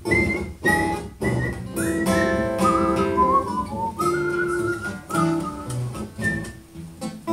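Acoustic guitar strumming the introduction of a song, with a high, wordless melody line over it moving from note to note.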